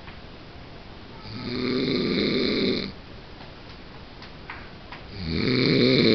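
A man snoring in his sleep: two loud snores about four seconds apart, each lasting under two seconds.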